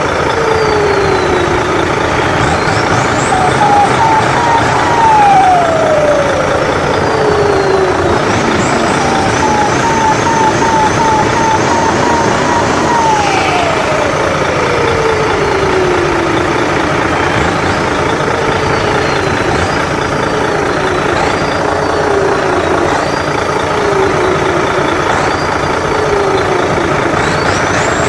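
The big radio-controlled truck's 'jet turbo' unit whining over a steady, loud rushing noise. The whine rises in pitch and then falls slowly twice, like a turbine spooling up and winding down, with short wavering dips in pitch near the end.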